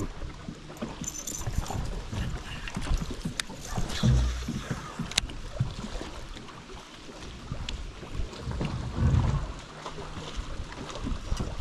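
Wind buffeting the microphone in gusts, heaviest about four seconds in and again near nine seconds, over water slapping against a small boat's hull on a choppy lake, with a few sharp clicks.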